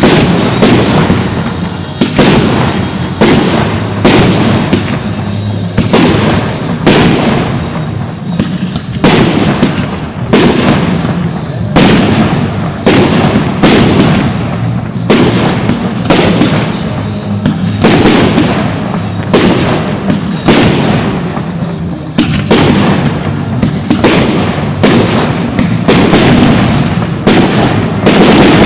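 Fireworks display: aerial shells bursting in rapid succession, somewhat more than one bang a second, over continuous crackle and rumble.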